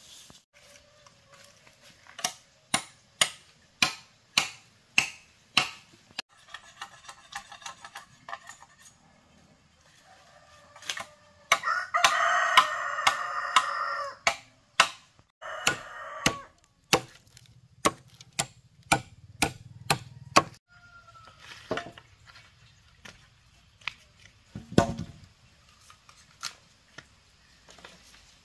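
A rooster crowing, one long crow near the middle and a shorter one soon after, over a steady series of sharp knocks of something being struck, about two a second.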